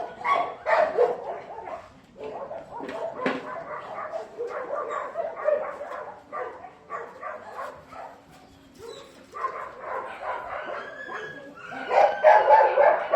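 Dogs barking in quick, repeated bursts, dropping off briefly past the middle and loudest near the end.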